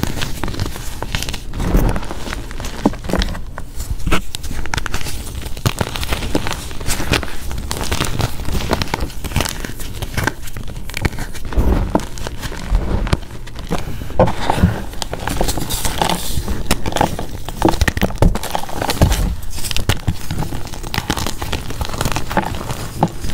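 Dyed Z Athletic gym chalk blocks coated in holi powder being crushed and crumbled by hand: a continuous, irregular run of dry crunches and crackles as chunks break apart and grind into powder.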